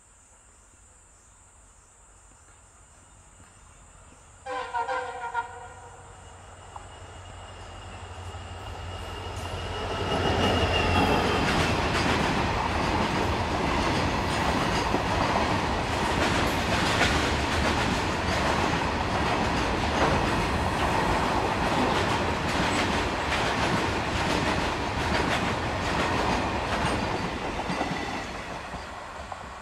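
A passenger train's horn sounds a few quick toots about four seconds in, then the train approaches and runs past at speed, wheels clattering over the rail joints for well over fifteen seconds before the sound fades near the end.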